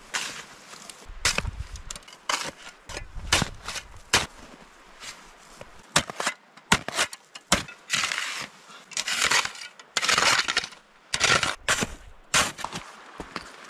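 A metal snow shovel digging into packed snow over and over, with sharp crunching strokes and scraping sweeps as snow is cut and tossed aside. Longer, louder scrapes come in the second half as the blade clears down toward the ground.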